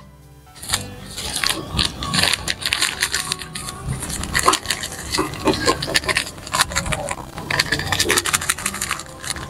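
A small plastic bag crinkling and rustling as it is handled and opened, with dense irregular crackles.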